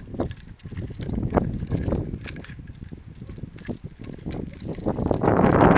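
Nunchucks being swung and spun, with irregular clacking and rattling as the sticks and chain knock together. A louder rushing noise builds near the end.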